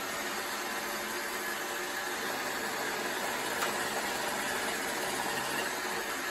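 iRobot Roomba 690 robot vacuum running steadily as it drives back to its charging dock.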